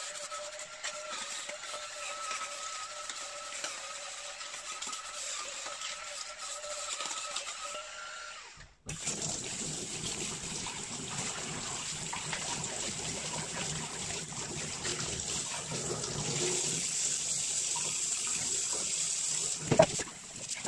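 Cordless electric kitchen cleaning brush (EUL-SS001) with its motor whirring steadily as it scrubs a stainless steel sink strainer basket. About nine seconds in the whir stops and a tap runs, splashing over the strainer and brush in the sink. A sharp knock comes near the end.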